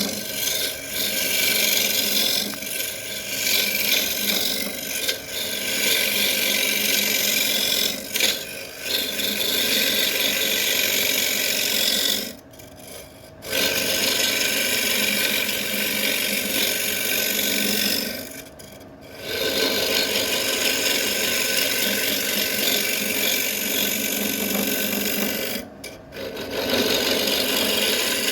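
A tool scraping against wood spinning on a woodturning lathe, giving a steady rasping noise that breaks off briefly three times.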